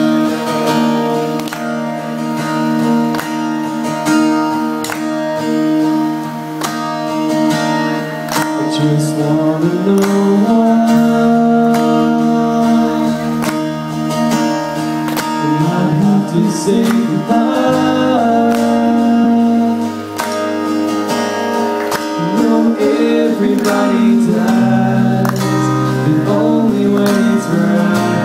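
A band playing a song live: a lead voice singing over strummed acoustic guitar and electric guitar, with deeper low notes joining about ten seconds in.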